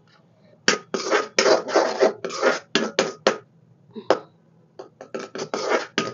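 A metal ladle scraping against an iron kadhai in a run of short, loud scrapes, about three a second, with a pause of about a second in the middle.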